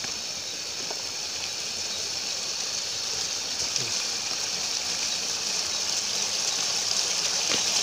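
River water rushing over rocks, a steady hiss that grows a little louder toward the end, with a high even drone of insects above it.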